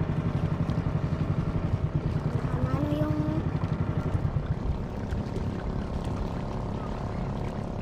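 Engine of a small motorized wooden boat running under way with a rapid, even pulse. A little past halfway the pulse smooths out and the sound drops slightly.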